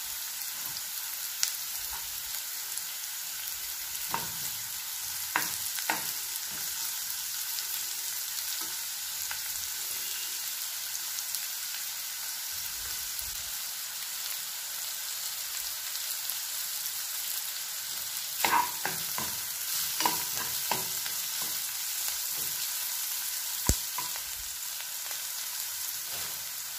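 Chopped onions and cashews sizzling in hot oil in a nonstick frying pan, a steady hiss as they fry toward golden brown. A steel spoon scrapes and knocks against the pan a few times a few seconds in and again about two-thirds through, with one sharp tap near the end.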